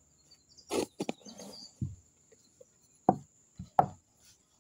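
A handful of short knocks and clicks from eating by hand at a table, fingers working the food on a plate close to the microphone, with one brief low thump just under two seconds in.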